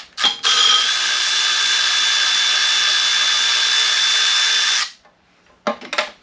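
Handheld power tool running steadily for about four and a half seconds while loosening a bolt, then stopping suddenly. A few short metallic clanks follow near the end.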